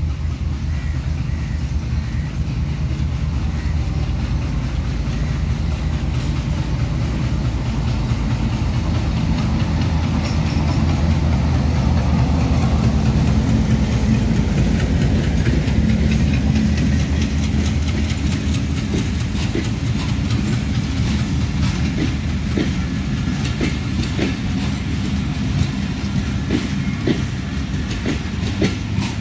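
Bangladesh Railway diesel locomotive hauling a passenger train past at close range. The engine's steady low drone grows and is loudest about halfway through as the locomotive goes by. Then the coaches roll past, their wheels clicking over the rail joints.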